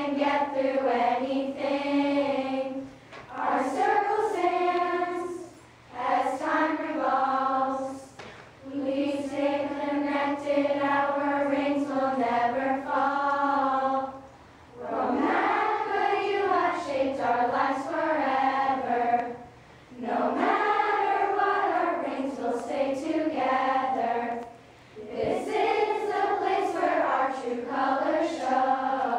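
A choir of girls singing together, in long held phrases broken by short pauses for breath.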